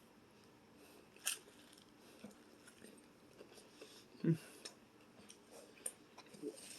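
Close-up chewing and mouth sounds of someone eating a cheeseburger. There is a sharp click about a second in and a short, low throaty sound about four seconds in.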